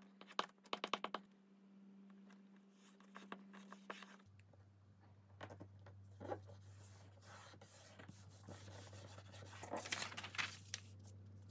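Glue stick being worked over paper strips: a rapid run of small clicks in the first second, then faint rubbing and scraping of the glue on paper.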